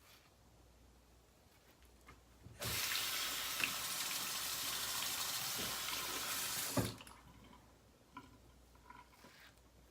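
Bathroom sink tap turned on and running in a steady stream for about four seconds, then shut off.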